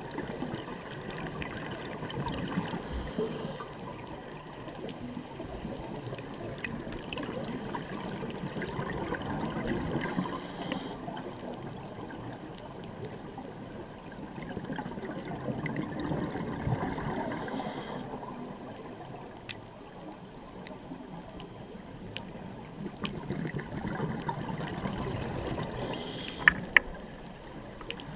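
Scuba regulator breathing heard through an underwater camera housing: long stretches of bubbling exhalation, with a short hissing inhalation about every seven seconds, over faint scattered clicks.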